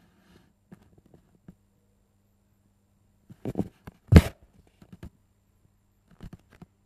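Handling noise: scattered light clicks and knocks as the recording device and the scooter are moved about, with a cluster of louder knocks about three and a half seconds in and the loudest sharp knock just after four seconds.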